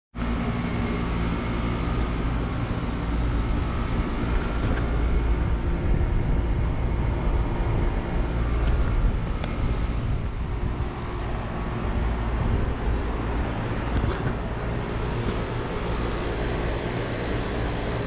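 Outdoor air-conditioner condensing units running: a steady mechanical hum with a few faint tones over it, and an uneven low rumble of wind on the microphone.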